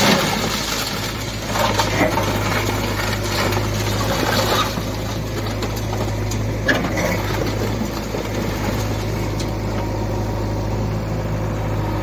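Diesel engine of a JCB 3DX backhoe loader running steadily as its bucket pushes down a concrete house. Rubble crumbles and crashes at times, loudest between about 1.5 and 4.5 seconds in, with a sharp knock near 7 seconds.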